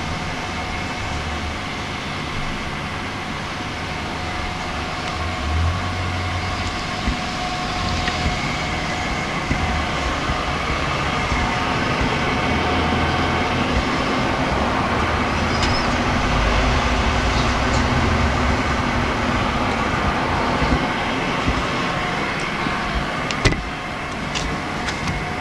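A steady mechanical hum and hiss with a few faint constant tones, a low rumble swelling twice, and a few sharp clicks near the end.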